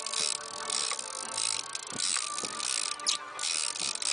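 Fishing reel clicking and ratcheting in repeated short bursts while a large hooked fish pulls against the hard-bent rod.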